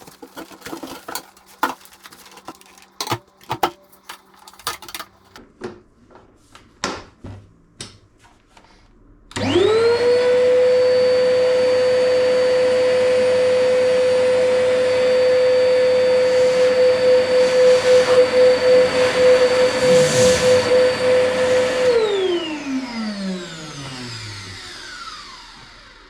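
A few seconds of scattered knocks and clicks, then a workshop chip extractor's motor and fan start, run up within a moment to a steady high whine, run for about twelve seconds with a slight pulsing late on, and are switched off, the whine falling in pitch as it spins down.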